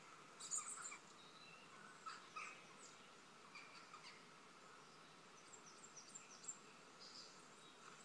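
Faint bird chirps and calls from a bird video played through a laptop's speakers: short high chirps scattered throughout, the loudest cluster about half a second in.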